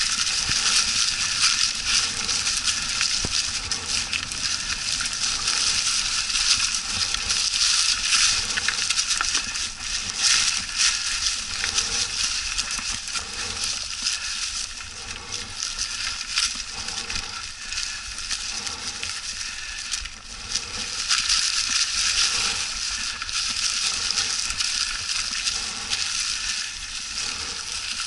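Mountain bike tyres rolling over a trail thickly carpeted with dry fallen leaves, giving a steady crunching and crackling of leaves under the wheels.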